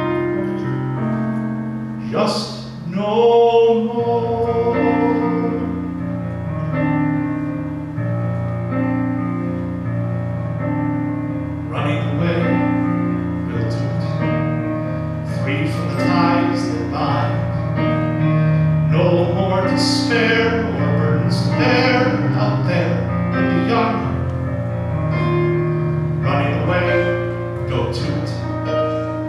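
A man singing a slow ballad into a microphone, with a keyboard playing sustained piano chords underneath.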